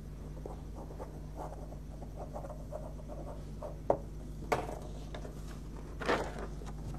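Quiet paper-handling noises: soft rustling and small clicks over a steady low hum, with a sharp click about four seconds in and a louder rustle of a sheet of paper about six seconds in.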